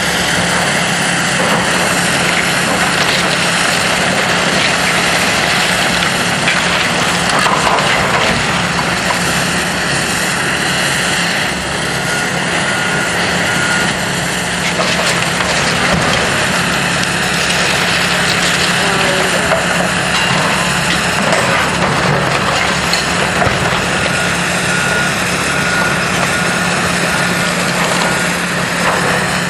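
Heavy demolition machinery's diesel engine running steadily, with scattered cracks and knocks of debris as the building is torn down.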